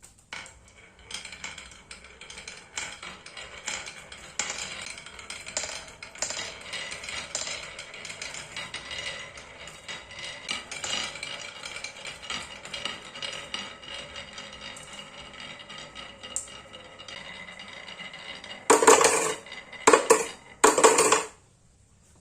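Many marbles rolling and clicking down a wooden marble run, with ringing clinks as they knock together and against the track. Near the end come three short, much louder bursts of clattering.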